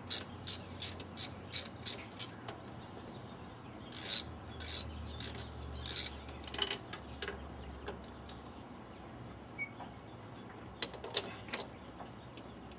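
Socket ratchet clicking in an even rhythm, about three clicks a second, through the first two seconds. A few louder clicks follow around four to six seconds in, and a few scattered ones come near the end.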